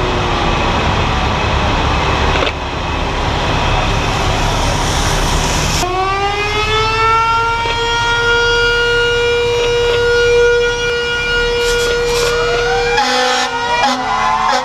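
Fire engine sirens. After a loud, steady rushing noise, a siren winds up about six seconds in and holds a steady wail. Near the end more sirens glide up over it, along with steady horn-like tones.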